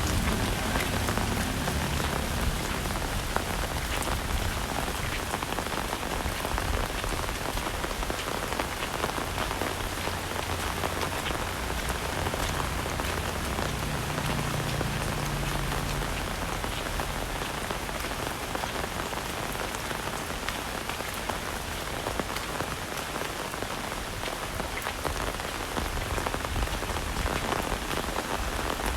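Heavy rain falling steadily, a dense patter of drops striking surfaces close by, with a low rumble underneath that swells and fades.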